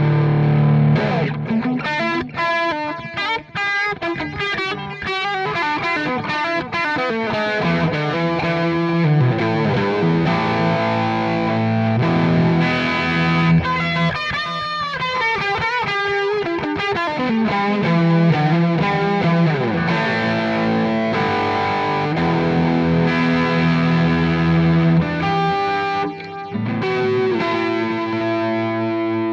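Fender Telecaster with Texas Special pickups played through an amp simulator with delay, in a driven tone: held melodic notes broken by fast runs of notes.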